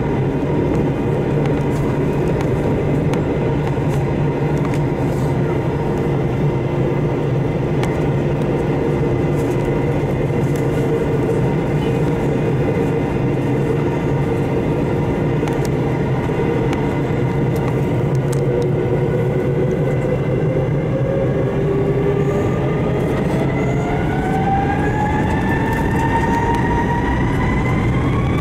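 Airbus A321's IAE V2500 turbofan engines heard from the cabin, running with a steady hum during taxi. From about twenty seconds in they begin to spool up, a set of whining tones rising steadily in pitch, as thrust comes up for the take-off.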